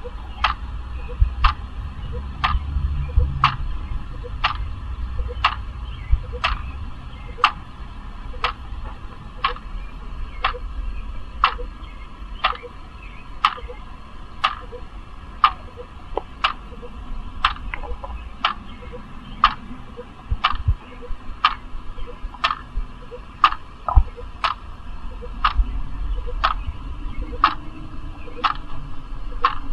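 Clock ticking steadily, about three ticks every two seconds, over a low background rumble with a few faint stray knocks.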